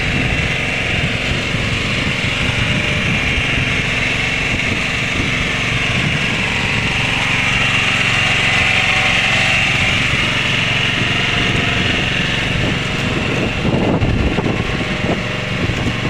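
Twin small engines of a motorized outrigger fishing boat running steadily under way, with water rushing past the hull. The owner says the engines are worn and short of maintenance.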